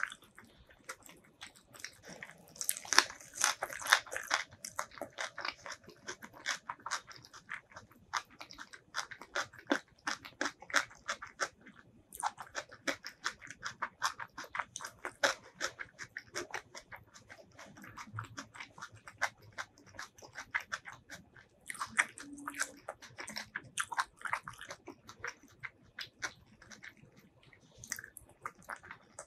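Close-miked mouth chewing of cooked leafy greens in curry sauce: runs of wet, crunchy chewing strokes, loudest about three to four seconds in, with quieter pauses between. Near the end comes a bite into a boiled egg.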